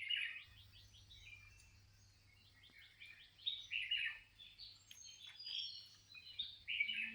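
Small birds chirping: quick runs of short, high chirps that come in bursts a few times, over a faint steady low hum.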